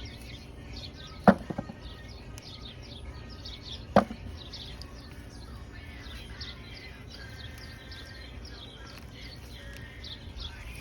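Two sharp knocks, about a second and four seconds in: potatoes tossed into a container. Small birds chirp rapidly and steadily throughout.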